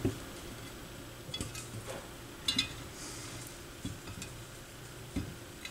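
A few light metallic clicks and taps as the AR XA turntable's metal subchassis and its new suspension springs are handled and set into position, over a faint steady hum.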